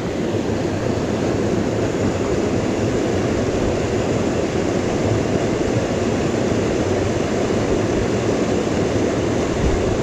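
Water of a small mountain stream rushing steadily.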